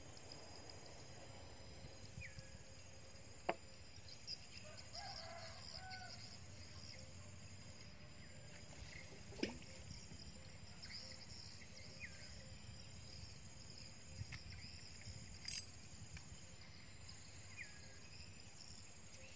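Quiet riverside ambience: a steady high insect buzz, with a few short bird calls and three sharp knocks, the loudest about three and a half seconds in, from fishing gear handled in the wooden boat.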